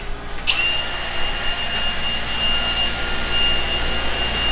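Steady high-pitched machine whine; it drops out for about half a second at the start, then comes back at the same pitch.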